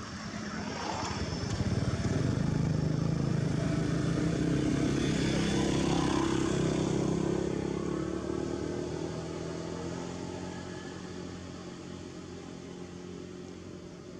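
A motor vehicle engine passing by: a steady hum that swells about two seconds in, holds, then fades away over the second half.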